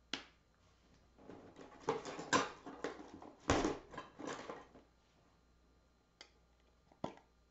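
Scraping, rustling and knocking as a metal paint can and a palette knife are handled, with a sharp click at the start and two light clicks near the end.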